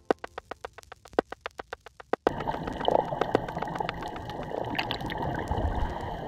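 A rapid, even run of sharp clicks, about six a second, that cuts off suddenly about two seconds in. Gurgling, sloshing water follows.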